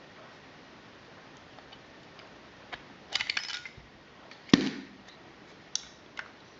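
Small clicks and taps of tools and tiny parts being handled while a View-Master Model D viewer is taken apart. There is a quick rattle of clicks about three seconds in, then a single sharp knock with a low thud about halfway, and a couple of lone clicks near the end.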